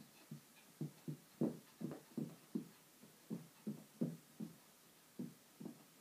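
A small puppy wrestling a plush toy on carpet: soft, low, muffled thumps in a quick, uneven rhythm, about three a second.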